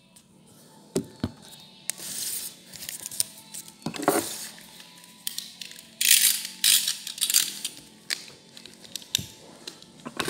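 A snap-off utility knife cutting through the packing tape of a cardboard parcel: a few clicks, a scrape, then a run of rasping cuts from about six seconds in.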